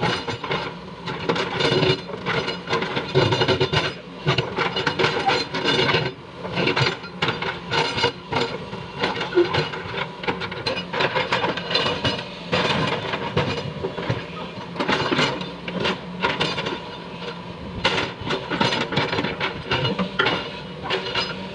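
A Foton crawler excavator runs while its bucket breaks up and scrapes slabs of old asphalt road. The engine hum is steady under a dense, irregular string of cracking, knocking and scraping sounds.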